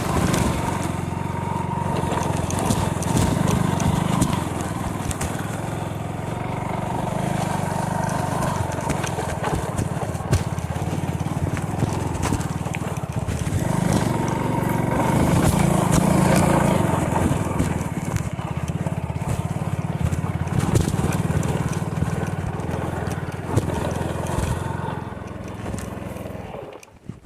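Small motorcycle engine running under load on a rough hill climb, swelling louder a few seconds in and again midway, then cutting off near the end.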